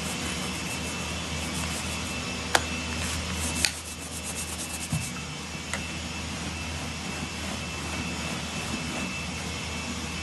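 Brush scrubbing foamed white leather seat upholstery in quick rhythmic strokes, with two sharp clicks, stopping about halfway. A steady machine drone with a low hum and a thin high whine runs underneath.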